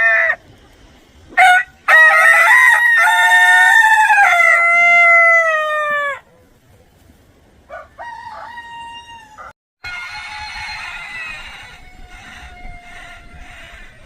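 Rooster crowing: a short call, then a long, loud cock-a-doodle-doo about two seconds in that drops in pitch at the end, followed by quieter crows later on.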